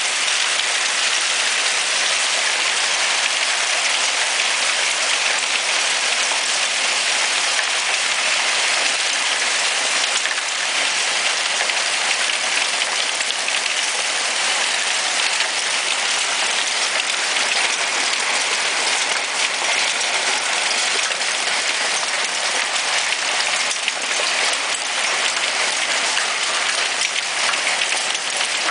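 Hail falling steadily on a wooden deck: a dense, even patter of many small impacts.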